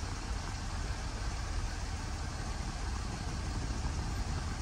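Jaguar XF Sport Brake's engine idling steadily, a low even hum heard from inside the cabin.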